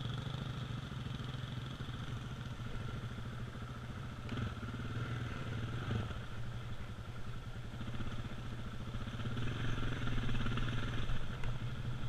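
KTM 690's single-cylinder engine running at low revs as the bike rolls slowly over gravel, getting a little louder about nine to eleven seconds in as the throttle opens. A couple of brief knocks come about four and six seconds in.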